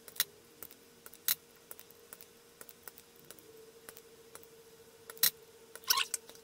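Electric desoldering iron (solder sucker) giving a faint steady hum that grows a little stronger about halfway through. A few sharp clicks and taps come from the tool working the chip pins on the circuit board.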